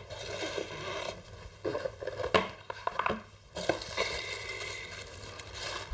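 Crinkling and rustling of a thin white packaging wrap being pulled off a red astronomy camera, with a few light handling knocks about two to three seconds in.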